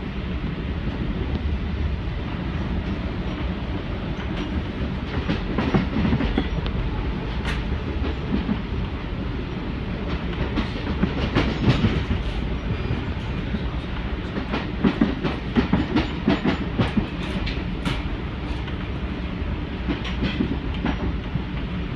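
Amtrak Acela Express train running, heard from inside a passenger car: a steady low rumble broken by several bursts of clicking clatter from the wheels on the track.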